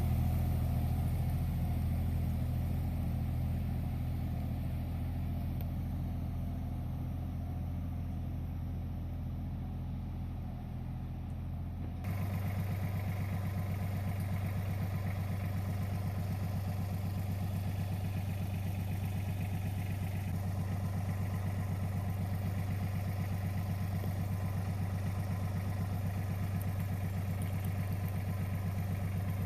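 Carraro 5500 compact tractor's engine running steadily. About twelve seconds in it suddenly gets louder and its pitch rises slightly, then it runs on evenly.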